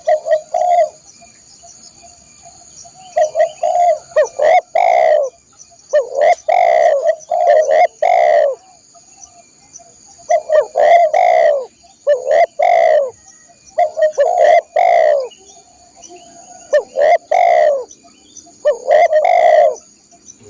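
Spotted dove (tekukur) giving its loud cooing song: phrases of several low coos, repeated every two to three seconds.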